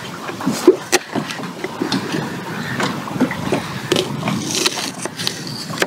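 Knives chopping vegetables on a wooden cutting board: a run of irregular knocks and scrapes.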